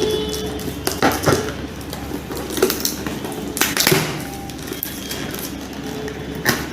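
A hand mixer being unboxed: cardboard and plastic packaging handled, with scattered knocks and clicks.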